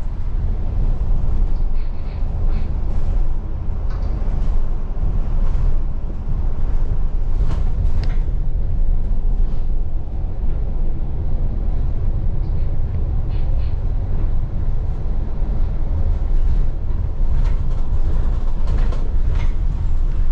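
Steady low rumble of a double-decker bus on the move, heard from inside the upper deck, with scattered brief clicks and rattles.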